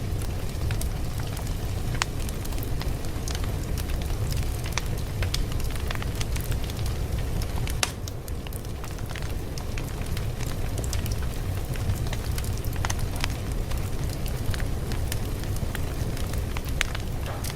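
Fire crackling steadily: a low rumble with frequent irregular sharp pops and snaps, easing briefly about eight seconds in.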